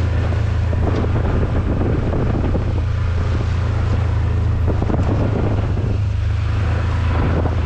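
Wind buffeting the microphone: a steady low rumble with rough, gusty noise over it.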